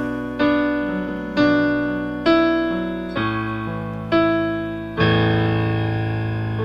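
Karaoke backing track with piano chords, one struck about once a second and each ringing and fading, then a longer chord held from about five seconds in.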